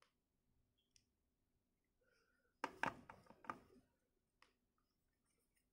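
Plastic joints and parts of a 1:18-scale Acid Rain World Camelbot figure clicking as its limbs are repositioned by hand, with a quick run of several sharp clicks about two and a half seconds in and a few faint ones around it.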